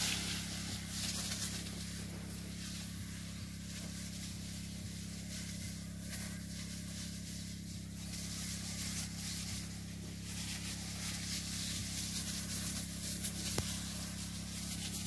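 Orchard pesticide spraying with a hose-fed spray gun: a steady low mechanical hum with an uneven hiss of spray mist.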